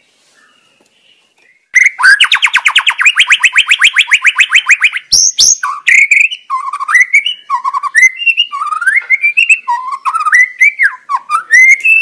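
White-rumped shama singing: after a short quiet start, a fast trill of about ten notes a second for some three seconds, then varied whistled phrases sliding up and down. A brief sharp click falls about five seconds in.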